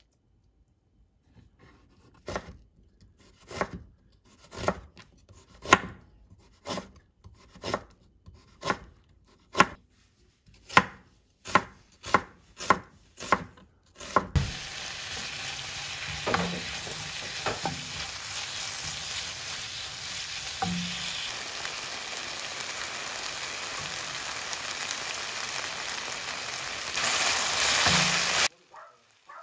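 A kitchen knife slicing onion on a wooden cutting board, about a dozen sharp knocks roughly a second apart. About halfway through this gives way to julienned potato sizzling as it is stir-fried in a hot pan, with a few soft knocks of a wooden spatula; the sizzle cuts off suddenly near the end.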